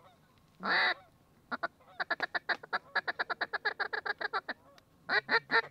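Duck quacking of the mallard kind. One loud drawn-out quack comes about a second in, then a fast, even run of short quacks, about seven or eight a second, lasts some three seconds, and louder quacks start again near the end.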